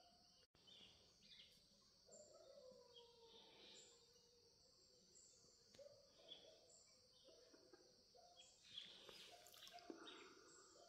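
Near silence: faint outdoor ambience with small, repeated high bird chirps over a steady high hiss, and a couple of faint knocks near the end.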